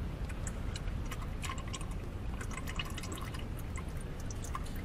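Engine oil draining fast from the open sump drain hole and splattering into a drain pan, a steady pour with many small drips.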